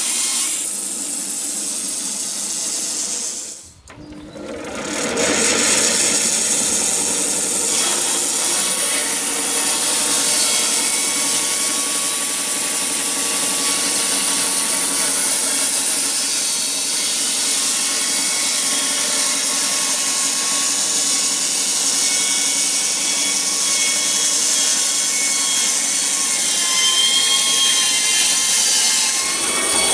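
Norwood LM29 portable band sawmill running and sawing through a log: a steady loud machine noise with a high hiss and a faint whine. It drops out briefly about four seconds in, then comes back.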